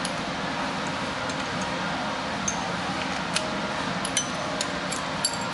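Scattered light metallic clinks of a socket wrench and long extension knocking against engine-bay parts, about six sharp ticks spread irregularly over a steady background hiss.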